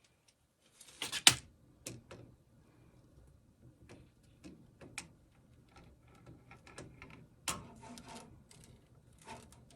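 Irregular clicks and light knocks of small hard objects being handled, with the loudest knock about a second in and another sharp one about seven and a half seconds in.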